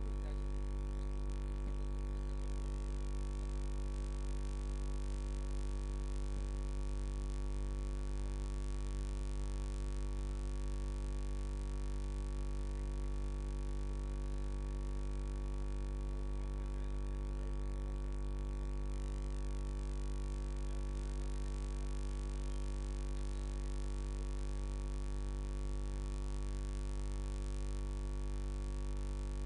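Steady electrical mains hum: a low buzz strongest near 50 Hz with a stack of overtones above it, unchanging in pitch and level.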